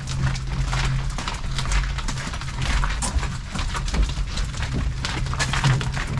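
A wheeled dock cart pushed down a gangway and onto the dock, with footsteps. The wheels and frame give a continuous low rumble and a dense, irregular clatter of knocks.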